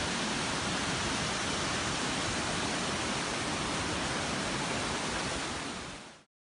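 Steady rush of waterfalls, fading out near the end.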